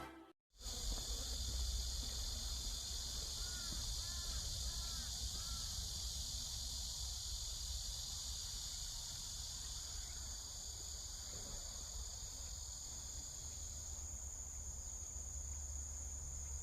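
Steady insect chorus of several high, unbroken trills, with a few short chirps from about three and a half to five and a half seconds in, over a low rumble.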